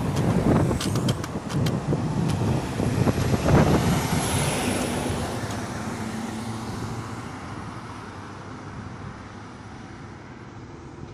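Box truck passing close by and driving away, loud at first with several sharp clicks in the first two seconds, then its engine and tyre noise fading steadily as it pulls off up the road.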